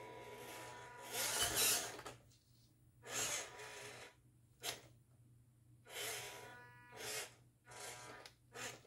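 Motor and gearbox of an FMS 1/18 Toyota FJ Cruiser RC crawler whirring in short bursts as it is driven forward and back. The first and longest burst rises and falls in pitch with the throttle, followed by about six shorter ones.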